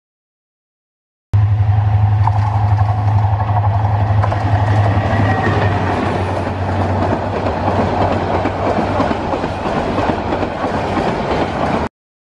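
Bangladesh Railway passenger train rolling past on the track, a steady rumble with a low hum that fades after the first few seconds. It starts abruptly about a second in and cuts off abruptly near the end.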